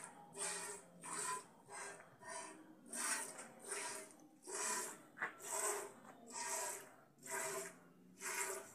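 Milk squirting from a cow's teats into a bucket during hand milking: a steady rhythm of short hissing squirts, a little more than one a second.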